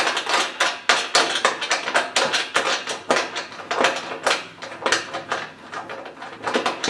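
Quick, irregular metallic clicks and rattles, several a second, from a corrugated metal hurricane shutter panel and its wing nuts as the wing nuts are worked off the mounting studs by hand.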